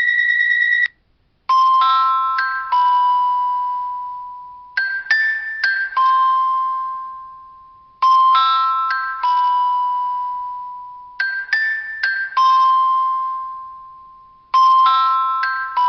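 Phone ringtone: a short chiming melody of a few struck, bell-like notes that ring out and fade, repeating about every three seconds. It opens with the tail of a steady electronic beep that cuts off just under a second in.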